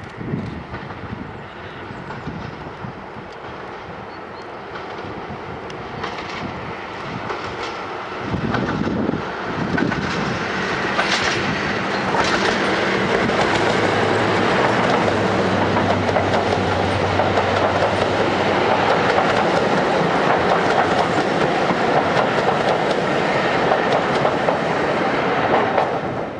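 Class 55 Deltic diesel-electric locomotive, its twin Napier Deltic two-stroke engines working, approaching and passing with a train of coaches. The sound grows louder as it comes round the curve, jumps about eight seconds in, and stays loud with a steady low engine note as the locomotive and coaches go by. It falls away right at the end.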